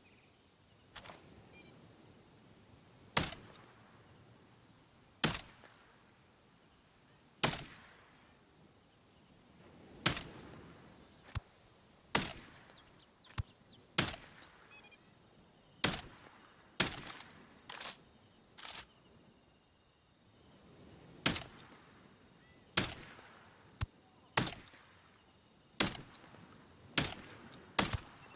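Shotgun shots at a range: about twenty sharp reports with short echoing tails, fired irregularly every one to three seconds and varying in loudness.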